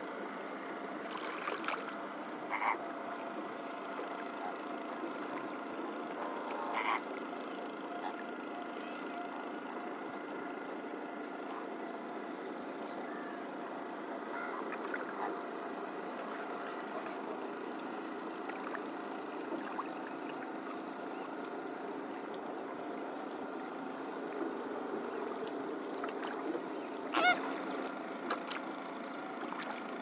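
A flock of greater flamingos gabbling steadily, with a few louder honks now and then, the loudest near the end.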